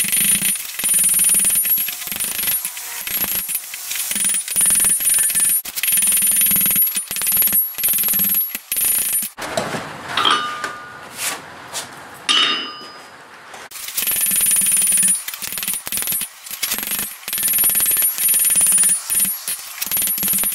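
Hand hammer striking red-hot steel on an anvil in a long run of ringing metal blows. The hammering breaks off for a few seconds near the middle, with only a few light clinks, then carries on.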